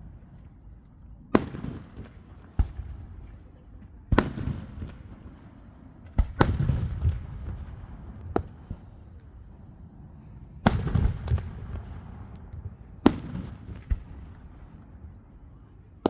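Fireworks exploding in the sky: a string of sharp bangs at irregular intervals, roughly one every one to two seconds, each trailing off in a rumbling echo with some crackle.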